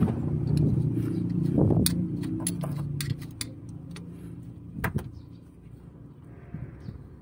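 Sharp metallic clicks and clinks of locking pliers gripping and turning the clutch cylinder's pushrod adjuster on a Mitsubishi Canter, a handful of separate ticks over the first five seconds. Under them a steady engine hum fades away about three seconds in.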